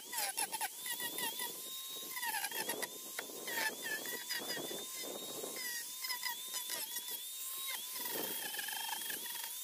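Angle grinder with a carving disc running and cutting into a wooden bowl blank: a steady motor whine that sags in pitch for a moment each time the disc bites into the wood, over a rough grinding rasp.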